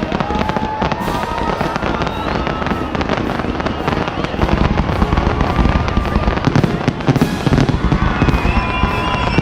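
Fireworks display: a dense run of crackling and popping shells mixed with whistling tones, with heavier booming bursts joining from about halfway through.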